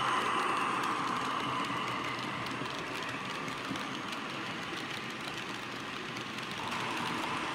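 HO-scale model train running past: the tank wagons' small metal wheels rattle and click steadily along the track, under the diesel engine sound from the BB 67400 locomotive's ESU LokSound V5 decoder speaker, which fades after about two seconds and swells again near the end.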